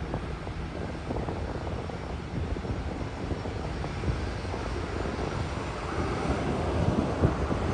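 Jet airliner engines running at the runway: a steady rumble that grows louder over the last couple of seconds.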